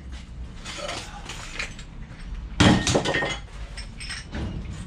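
Scrap metal clinking and clattering, with a louder clatter of several knocks about two and a half seconds in.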